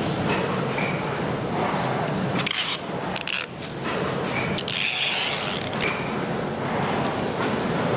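Clear packing tape pulled off the roll in two rasping strips, about two and a half and about five seconds in, and pressed onto kraft paper wrapping with some paper rustling, over a steady din of factory machinery.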